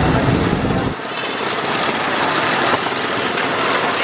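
Electric juice blender's motor running, then cutting off abruptly about a second in, leaving a steady hiss of street noise.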